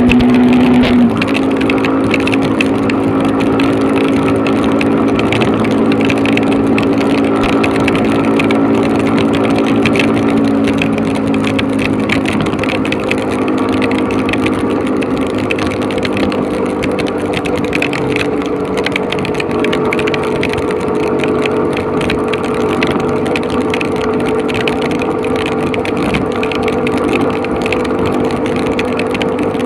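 Motorcycle engine running steadily at cruising speed, with a small drop in level and shift in pitch about a second in, under a steady hiss of heavy rain and wind.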